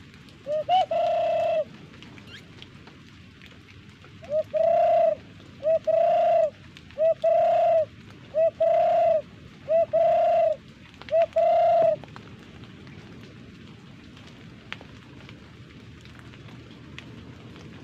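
A hunter's dove call blown through cupped hands: seven hollow coos, each a short rising lead-in note then a steady hoot, used to lure doves to the hide.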